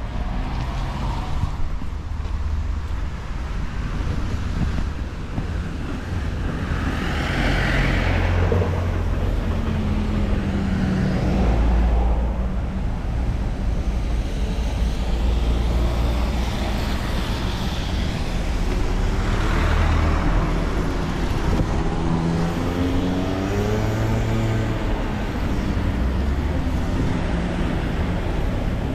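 Street traffic: motor vehicles driving past close by, their engines rising and falling in pitch, with two louder passes about seven and nineteen seconds in.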